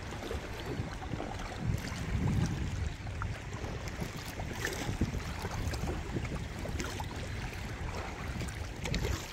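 Water lapping and splashing around a kayak under way, with small scattered ticks of water and a low wind rumble on the microphone.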